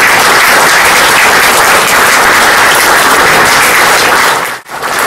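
Audience applauding steadily; the clapping breaks off for a moment near the end.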